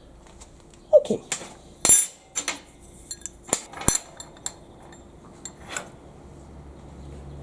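Metal parts and hand tools clinking and knocking on a workbench as they are handled: a run of sharp, ringing clinks, most of them in the first four seconds and a few more spaced out later.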